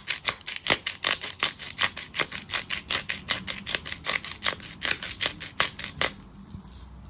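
Knife stirring seasoned flour in a plastic mixing bowl, the blade clicking and scraping against the bowl in a quick, even rhythm of about seven strokes a second; it stops about six seconds in.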